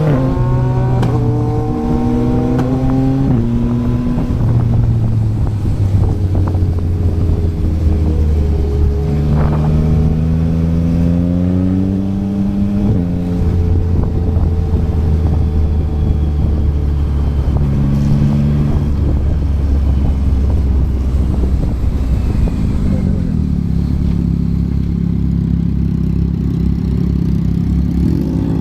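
Yamaha MT-09's 890 cc inline-three with a Yoshimura R11 exhaust under way, its note climbing and dropping through quick upshifts in the first few seconds, then pulling and easing off again. In the last few seconds it settles to a lower, steady note as the bike slows.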